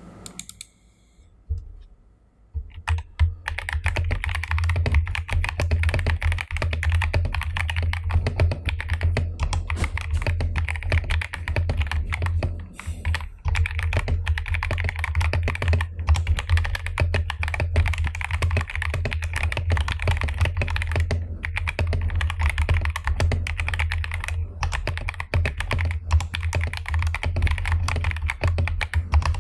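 Fast, continuous typing on a Royal Kludge RK68 mechanical keyboard with stock MMD Honey Tactile switches: a dense clatter of tactile keystrokes. It starts about three seconds in, and there is a brief pause about halfway through.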